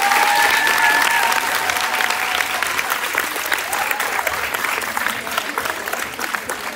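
Audience applauding steadily, a little louder at the start and easing slightly.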